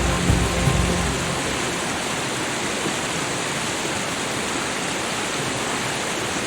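Steady, even hiss of falling water like heavy rain, with soft held music notes fading out within the first half second.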